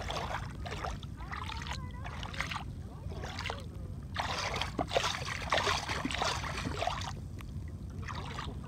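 Water sloshing and splashing against an inflatable paddleboard in irregular bursts, loudest in a longer stretch from about four to seven seconds in, over a steady low rumble of wind on the microphone.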